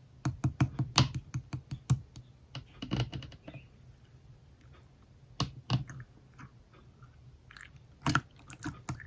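Slime being squished and poked by hand, making sharp wet clicking pops: a quick run of about five a second for the first two seconds, then scattered pops.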